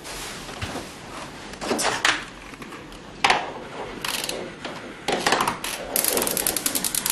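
Kitchen handling sounds at a gas stove: a small saucepan and a wooden spoon knocking and scraping on the stovetop, a few separate knocks, then a rapid run of ticking about six seconds in.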